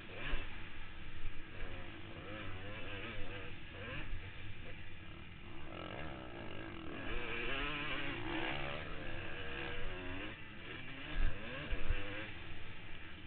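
Motocross dirt bike engine revving up and down as the rider accelerates and backs off around the track, heard from the rider's helmet. Two sharp thumps near the end.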